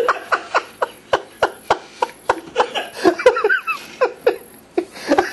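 Adult men laughing helplessly in short breathy gasps, about four a second, with a few higher voiced squeals in the middle.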